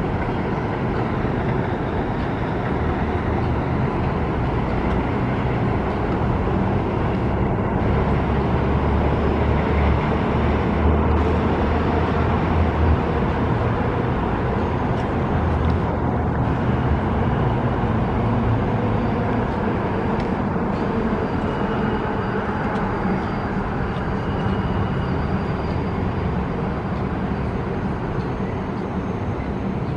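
New York City subway train running, a steady mechanical noise with a deeper hum that swells in the first half and faint high-pitched tones in the second half.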